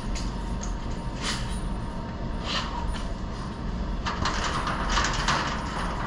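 Drain auger spinning a chain on the end of its cable inside a steel Jeep frame rail, the chain rattling and scraping against the rusty inner walls. It grows louder and denser about four seconds in.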